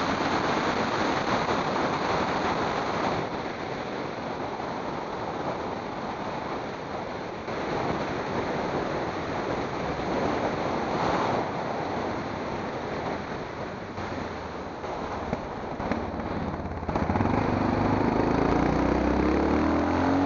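Steady rush of wind on the microphone mixed with tyre noise on asphalt as the camera moves along a road. A passing vehicle swells briefly about eleven seconds in, and about three seconds before the end a motor vehicle's engine comes in loud, its pitch rising.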